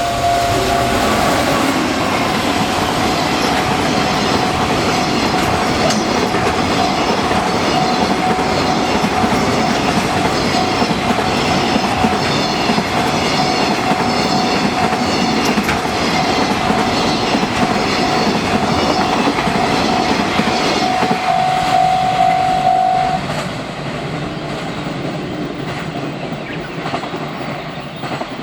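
Container freight train hauled by an EF210 electric locomotive running over a level crossing, its wagon wheels clicking in a regular rhythm over the rail joints, with the crossing's warning bell ringing on one steady pitch. About 23 s in the bell stops and the train's noise drops and fades away.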